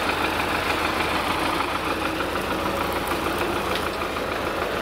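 Farm tractor's diesel engine idling steadily close by.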